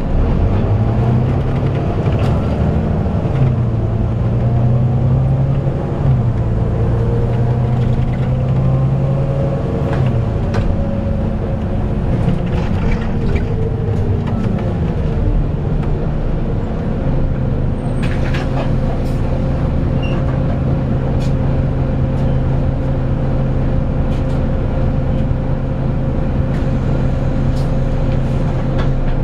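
Volvo B9TL double-decker's engine cooling fan whining like a vacuum cleaner over the engine, heard from inside the bus as it drives. The pitch dips and rises several times in the first half, then holds steady.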